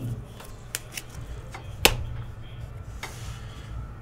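Topps High Tek trading cards, stiff clear-plastic acetate, clicking as they are flipped through by hand: a few scattered clicks, the sharpest a little under two seconds in, over a low steady hum.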